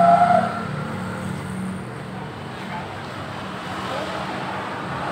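Motor-vehicle traffic in the background: a vehicle engine, loudest right at the start, fading into a steady low hum.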